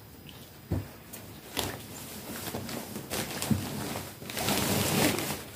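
Rustling and handling noises as small Christmas items and their packaging are handled. There are a few soft knocks, then a louder rustle about four seconds in.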